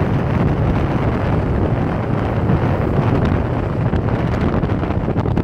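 Strong wind buffeting the microphone in a steady low rumble, with surf breaking on a beach underneath.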